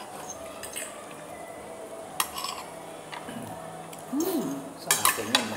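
Knife and fork clinking and scraping on a plate while cutting food, a few scattered clinks and then a cluster of louder ones near the end.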